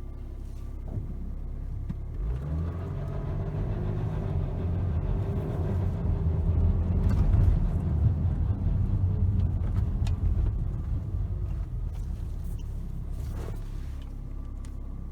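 BMW N57 straight-six diesel engine running, making the noise of a bad timing chain. The engine sound comes in strongly about two seconds in, grows louder toward the middle and then eases off.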